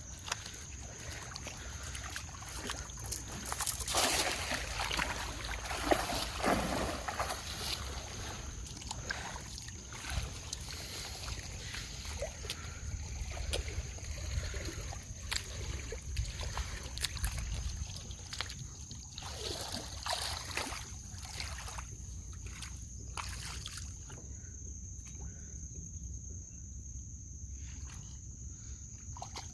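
Water sloshing and splashing around a small boat, with scattered knocks and stronger splashes about four, six and twenty seconds in. A steady high-pitched tone runs underneath.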